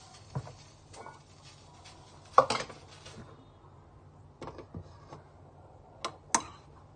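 Dishes being handled: scattered clinks and knocks of ceramic plates, the loudest about two and a half seconds in and two more close together near the end.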